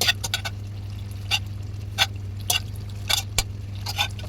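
Chicken pieces being stirred into thick curry in a pot: short wet squelches and scrapes of the spoon, coming irregularly about every half second.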